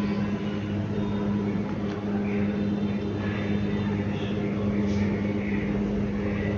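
A steady low hum, even throughout, with faint children's chatter in the background.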